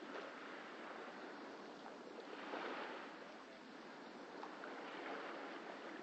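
Small sea waves washing and lapping at a wooden jetty, a steady wash that swells about two and a half seconds in.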